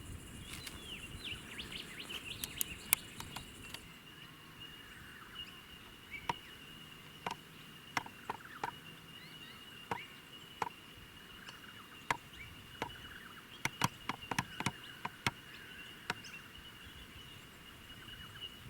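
Faint outdoor ambience: a steady high insect trill, a higher insect buzz that stops about four seconds in, soft bird chirps, and scattered sharp clicks throughout.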